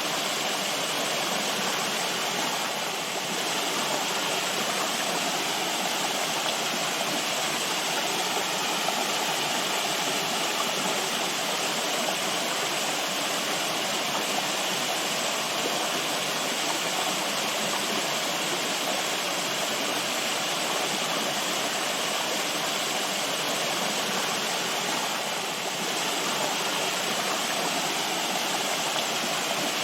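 Running water rushing steadily in an even, unbroken wash, dipping slightly twice.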